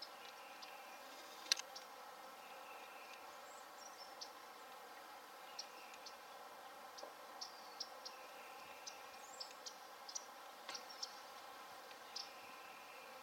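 Faint outdoor ambience: scattered short, high chirps and a few sharp clicks, like distant small birds, over a steady low hum.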